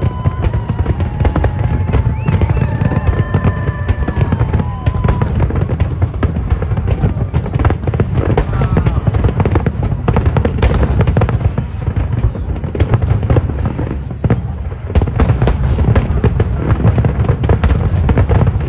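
Fireworks in a dense barrage: a continuous low rumble of shell bursts, with many sharp cracks throughout. A few whistling tones glide through the first five seconds.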